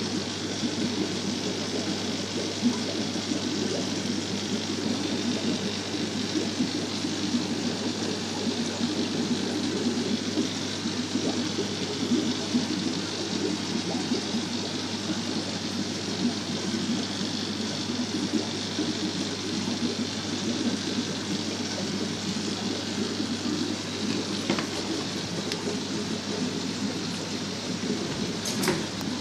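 Water running and bubbling in fish tanks, a steady rushing noise with a low hum underneath; a couple of light clicks near the end.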